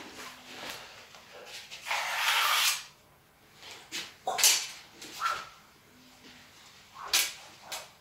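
A longsword swung through the air: a long swish about two seconds in, then shorter, sharper swishes around the middle and again near the end.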